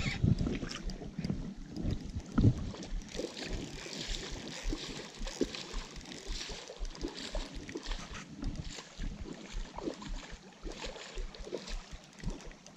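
River water running over a shallow gravel bed and wind gusting on the microphone. Irregular low knocks and rumbles come from the rod and reel being handled while a hooked salmon is played.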